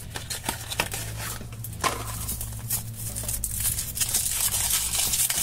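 Handling a small cardboard box and a foil-wrapped chocolate egg: scattered taps and rustles of cardboard, then denser crinkling of thin foil as it is peeled off the egg near the end.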